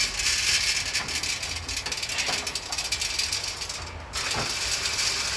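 Green coffee beans poured from a plastic bag into a coffee roaster's stainless steel drum: a dense rattle of many beans clattering on the metal, easing briefly about four seconds in.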